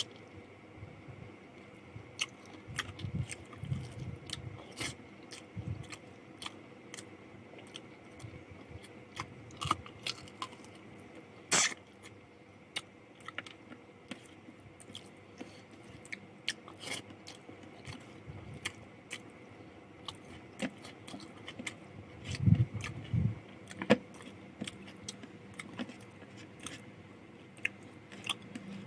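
Close-up eating sounds of someone chewing rice with chicken curry and fried potato: scattered wet clicks and smacks of the mouth at an uneven pace, with a couple of dull thumps about three-quarters of the way through.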